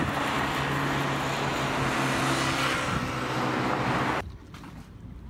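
A steady engine drone under a loud hiss of wind and surf. It cuts off abruptly about four seconds in.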